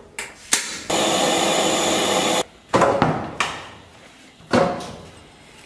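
Gas stove being lit: two clicks of the knob and igniter, then the burner running with a steady roar for about a second and a half until it cuts off suddenly. Then three separate knocks with short ringing tails, a wooden chopping board on a stainless-steel counter.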